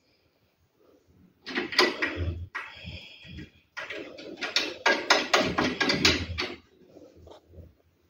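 Sheet-metal side cover of a Lenovo desktop tower being slid back onto the case and fastened: a run of metal clicks, scrapes and knocks that starts after about a second and a half.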